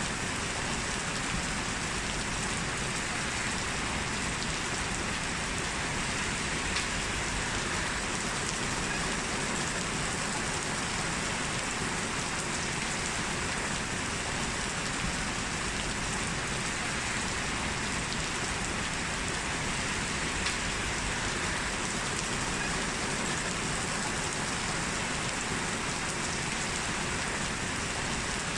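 Heavy rain falling steadily, a dense even hiss with a few sharper drop ticks here and there.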